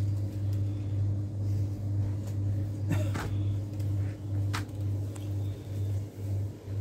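A steady low hum that pulses slightly, with a few short rustles and soft knocks about three seconds in and again near five as a folded suit is handled and set down on a table.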